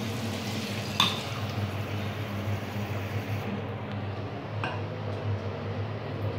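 Tap water running into an enamel mug held in a ceramic sink, with a sharp ringing clink of the mug against the basin about a second in. The water stops a little past halfway, and a fainter clink follows. A wall exhaust fan hums steadily underneath.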